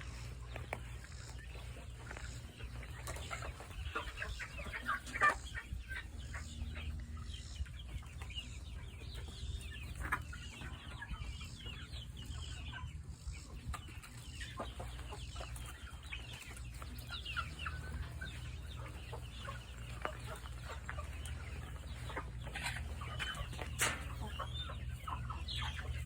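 Chickens clucking, with many short calls scattered throughout, over a steady low hum.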